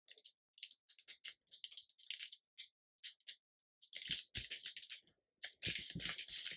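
Paper and card being handled on a craft table: a run of short rustles and crinkles, louder and busier in the second half.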